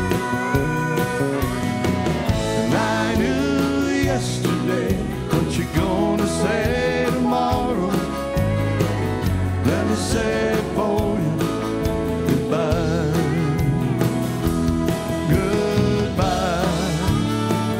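Country-rock band playing an instrumental break, with a harmonica solo of bending, wavering notes over electric and acoustic guitars and bass guitar.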